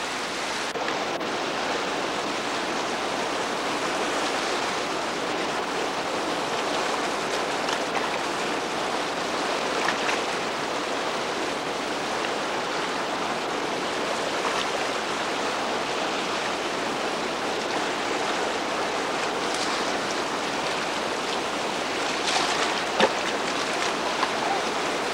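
Steady roar of whitewater in a big river rapid. A few short, sharper sounds cut through it, the loudest near the end.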